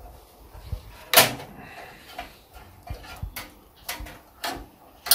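Irregular sharp clicks and knocks of small metal parts being handled, about seven in all with the loudest about a second in: the old boiler thermocouple being worked loose and pulled out of its pilot bracket.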